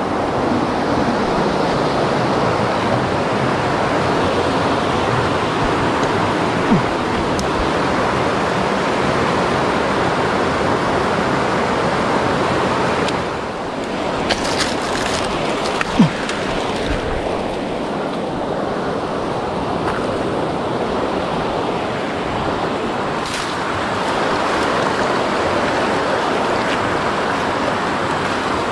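Fast mountain-stream rapids rushing steadily, a dense hiss of white water. It drops a little about halfway through, where a few brief knocks and clicks come in over it.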